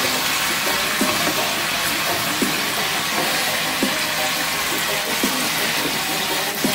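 Oil sizzling steadily under curry-seasoned chicken pieces being turned in a stainless pot, with a few light knocks of the utensil against the pan.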